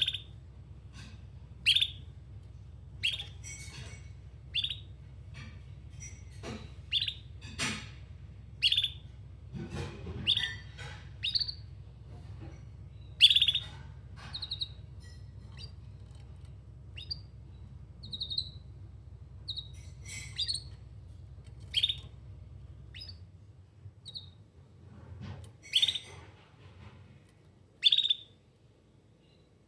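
Domestic canary calling: short, sharp chirps repeated every second or two, with a few brief trills in between.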